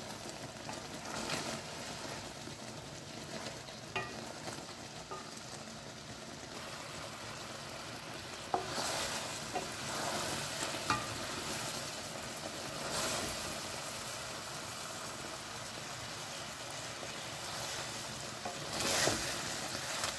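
Carrots cooking in a milk-and-sugar syrup boiled down thick in an aluminium kadai, sizzling and bubbling steadily. A wooden spoon stirs and scrapes the pan in several swells, with a few sharp clicks against the metal.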